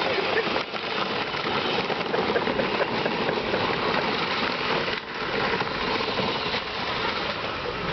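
A Power Wheels ride-on car boosted to 24 volts, running with a steady whirring noise from its electric drive motors and gearboxes and its high-RPM server cooling fans. The noise dips briefly about five seconds in.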